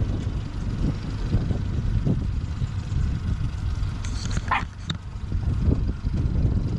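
Low, steady rumble of the boat's motor running, with a dog giving one short high yelp about four and a half seconds in.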